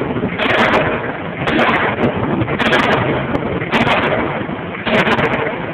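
Converted hydraulic forging hammer striking a glowing hot workpiece in a steady rhythm, about one blow a second, five blows in all, each a sharp crack followed by a short rush of noise, over a continuous machine hum.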